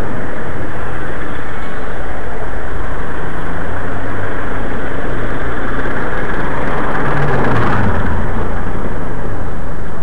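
Steady street-traffic noise recorded from a moving bicycle, with rumble and wind on the camera's microphone. A city bus idles close alongside, and its engine swells louder with a falling hum around seven to eight seconds in.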